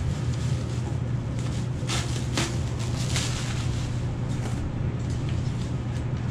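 Foil packing wrap and a plastic bag crinkling and rustling as a part is unwrapped in a cardboard box, with a few louder crackles about two and three seconds in. A steady low hum runs underneath.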